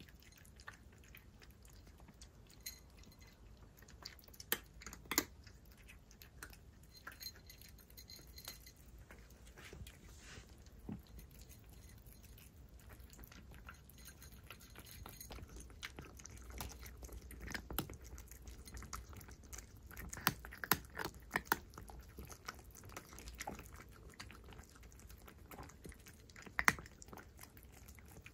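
Two tabby cats eating a mix of wet food and dry kibble, with faint, irregular chewing and crunching and a few sharper, louder crunches now and then.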